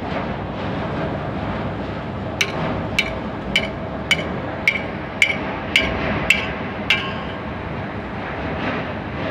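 Nine sharp, ringing hammer blows on steel, about two a second, striking the bulldozer's sprocket assembly to work it loose for dismantling, over steady background noise.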